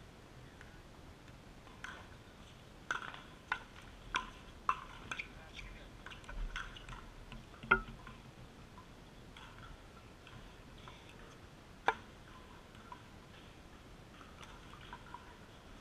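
Pickleball rally: sharp hollow pops of the plastic ball off hard paddles and bouncing on the hard court. There is a quick run of pops over a few seconds, then one loud pop later on.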